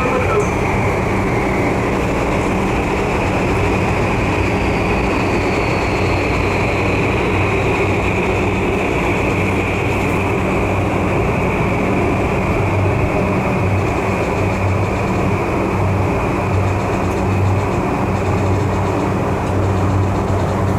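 Tokyu 3020 series electric train running, a steady rumble with a constant hum and a high whine. A few seconds in, a faint tone slides down in pitch.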